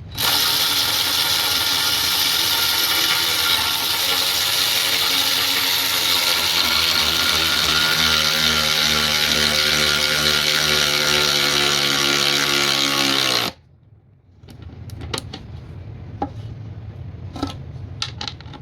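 Cordless electric ratchet wrench running continuously under load for about thirteen seconds, its motor and gear whine sagging slightly in pitch near the end, then stopping abruptly. Light clicks and handling follow.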